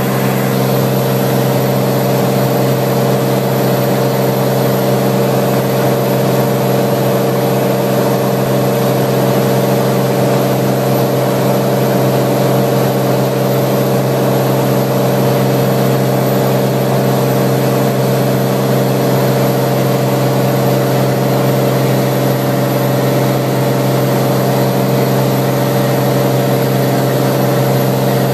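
Cirrus SR20 light aircraft's six-cylinder piston engine and propeller running at a steady drone, one constant pitch with a hiss over it and no change in power.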